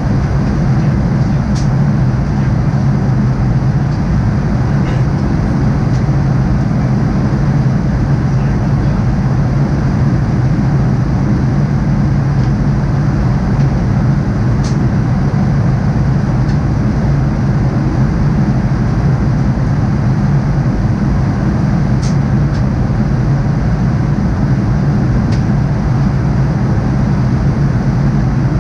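Steady in-flight cabin drone of a Boeing 787-9, a low engine hum under an even rush of airflow, picked up by a camera stuck to the cabin window. It does not rise or fall.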